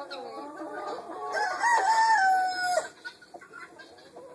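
A rooster crows once, starting about a second and a half in and lasting about a second and a half, over hens clucking.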